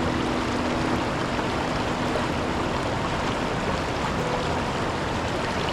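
Steady rush of river water around the Kletzsch waterfall on the Milwaukee River, an even wash of noise with no breaks.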